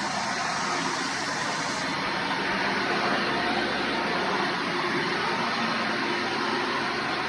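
Hoover Runabout Deluxe vacuum cleaner running steadily, its motor and airflow giving an even, unbroken noise.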